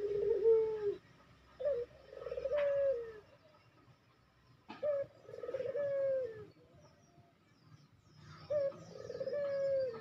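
Ringneck dove (puter) cooing: the end of one coo, then three more about three seconds apart. Each is a short rising note, a rolling trill and a long falling note.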